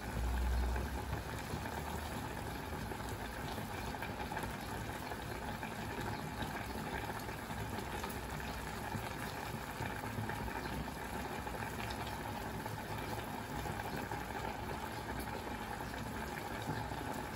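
Stainless-steel saucepan of pork and vegetable curry boiling on the stove, a steady bubbling simmer.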